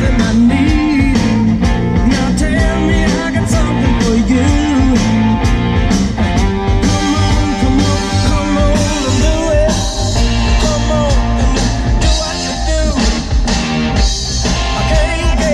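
Music with vocals and heavy bass played loud through a Jeep's aftermarket car stereo with a Kicker Solo-Baric L7 subwoofer, heard inside the cabin.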